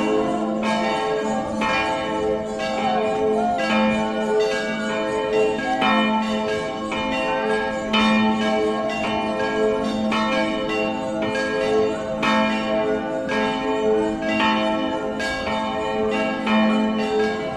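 Church bells ringing a festive peal: several bells of different pitch struck in a steady run, more than one strike a second, each note ringing on under the next.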